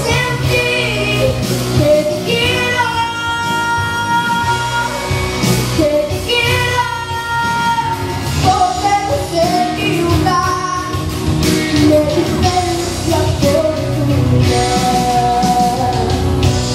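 A girl singing a Spanish-language pop song into a microphone, with piano accompaniment.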